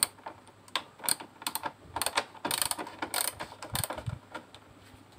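Hand ratchet with a 10 mm socket clicking in short bursts of back-strokes as it loosens the bolts holding a car's radiator fan motor.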